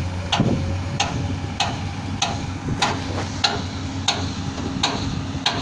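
Road-construction machinery: an engine running steadily under sharp knocks that repeat evenly about every two-thirds of a second.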